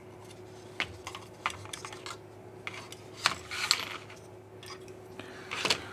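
Scattered light clicks and taps of plastic and metal as a Fluke 8050A multimeter's plastic chassis and circuit board are handled and turned over on a work mat, about half a dozen irregular knocks over a faint steady hum.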